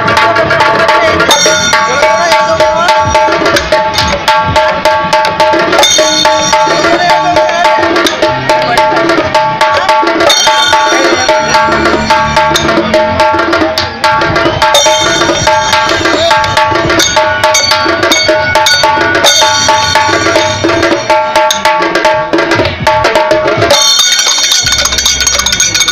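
Karadi majalu folk drum ensemble playing: large karadi drums and sambal drums beaten in a fast, dense rhythm, with a steady high melody line held over the drumming.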